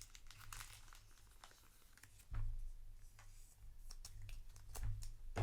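Trading cards and booster packs being handled on a table: light clicks, slides and soft rustles, with a dull low thump about two seconds in and another near the end.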